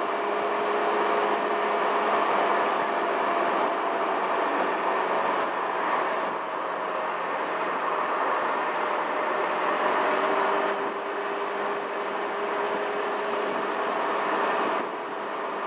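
Steady wind and road noise of a Honda Helix CN250 scooter cruising at about 55 mph, with its 250 cc single-cylinder engine humming quietly underneath at light throttle on a slight downhill.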